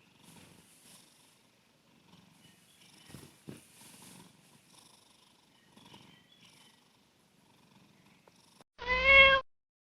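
A domestic cat snoring softly in its sleep with faint, irregular breaths. About nine seconds in comes a single short, loud meow.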